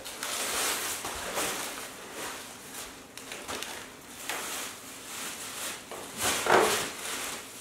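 Gift wrapping paper rustling and tearing in a run of uneven bursts as presents are unwrapped, with a louder burst near the end.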